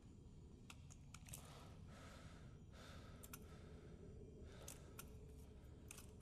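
Faint scraping and scattered small clicks of a hand tool worked against a crumbling wall.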